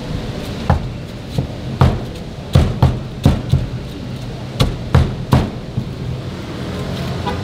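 Meat cleaver chopping whole fried chicken on a round wooden chopping block: about ten irregular, sharp chops as the blade cuts through the crisp chicken and strikes the wood.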